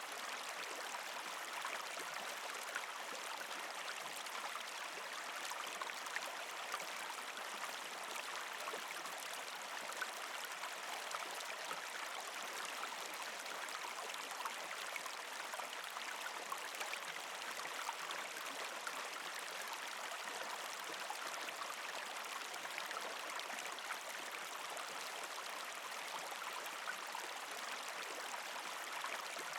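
Partly frozen creek flowing and trickling over rocks: a steady, even rush of water with frequent small gurgles and splashes.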